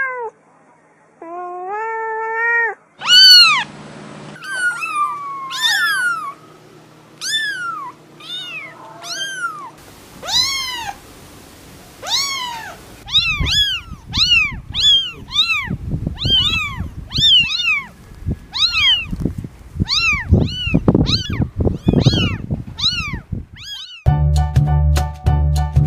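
An adult cat gives a long meow. Then kittens mew over and over in short, high, arching cries, about two a second toward the end, over low rumbling bumps. Music with a steady beat starts near the end.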